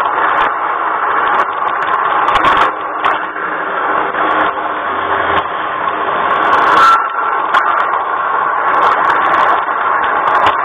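LGB garden-railway train running, heard from a camera riding on it: a steady whir and rattle of motor, gears and wheels on the rails, with scattered clicks. A brief squeal about seven seconds in, as the train rounds a curve.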